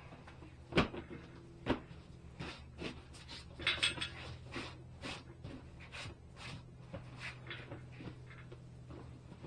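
Handling noises from an inner tube and a metal stem puller being worked into a motorcycle rim: irregular small clicks, knocks and rubbery rustling, with a sharper knock about a second in. A faint steady hum runs underneath.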